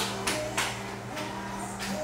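Faint music playing in the background, with a few light clicks.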